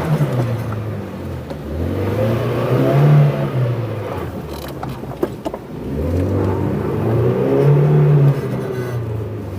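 2015 Leopard Black King Kong 2.2 four-wheel-drive SUV engine pulling under load off-road, revving up and easing off twice, with a few sharp knocks about halfway through.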